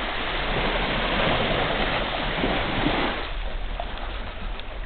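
Small sea waves washing up a sandy shore: a wash that swells over the first three seconds, then eases off.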